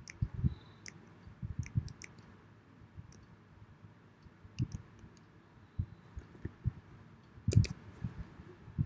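Keystrokes on a computer keyboard: scattered, irregular clicks of typing a short command, with a louder click near the end.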